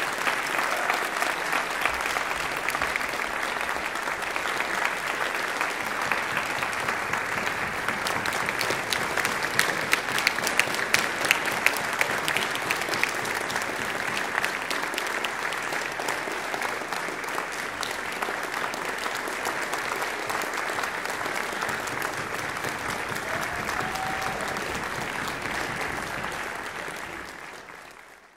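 Audience applauding, a dense patter of many hands, with some louder, sharper claps about ten seconds in; the applause fades out at the end.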